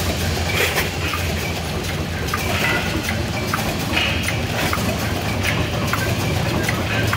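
Wet-wipe folding and packing machine running: a steady low hum with frequent clicks and short hisses from its moving parts.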